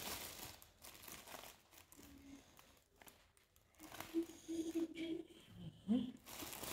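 Plastic packaging crinkling and rustling in irregular bursts as a wrapped kids' protective gear set is handled. A faint voice comes in during the second half.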